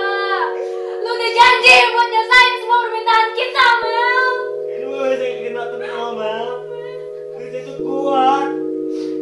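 Background music: a slow song with a voice singing a wavering melody over sustained chords, which change about four seconds in and again near the end.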